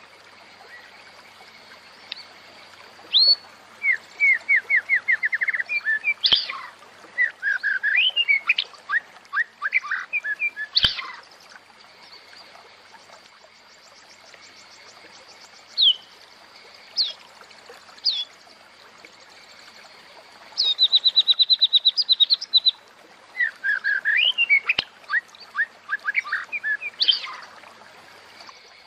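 Female white-rumped shama (murai batu) calling: bursts of rapid repeated chattering notes and single sharp whistled sweeps, separated by short pauses, with the densest run about three-quarters of the way through. It is the female call that brings male murai batu into breeding condition. A faint steady high tone runs underneath.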